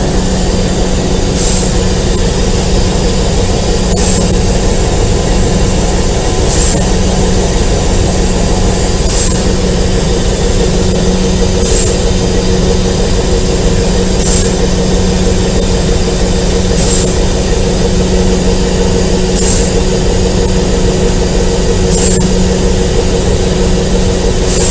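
Alco RS8 diesel-electric locomotive running steadily under way, heard from on board: a constant engine drone over the rumble of the ride. A faint high squeak repeats about every two and a half seconds.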